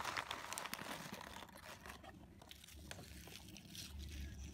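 Foil snack bag crinkling and triangular chips rattling against each other as they are tipped out of the packet into a hand. The sound is busiest in the first second or so, then thins to a few light clicks.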